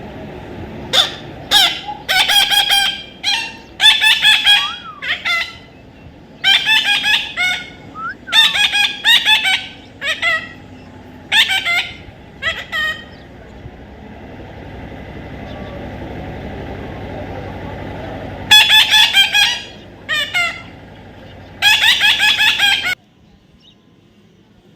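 Parrot calling with loud, harsh squawks in quick series, each call a rapid rattle of pulses. After a pause of several seconds a few more squawks come, then the sound cuts off near the end.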